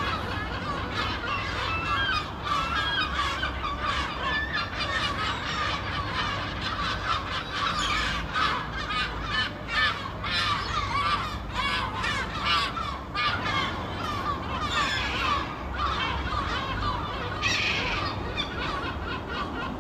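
A flock of seabirds calling continuously, many short overlapping cries, over a steady low rumble.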